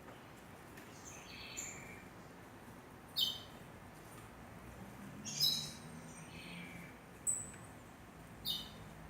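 Small aviary songbirds giving short, scattered chirps and calls, the sharpest four coming a second or two apart.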